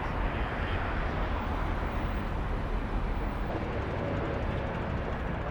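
Steady noise of road traffic, with a low rumble that eases about three and a half seconds in.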